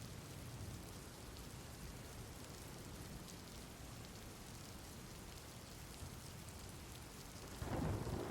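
Steady rainfall, an even hiss of falling rain, with a low rumble of thunder starting to build near the end.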